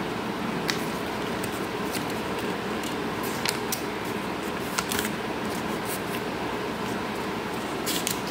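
Red origami paper being folded and creased by hand, giving a few short, crisp crackles of stiff paper. Under them runs a steady background hiss.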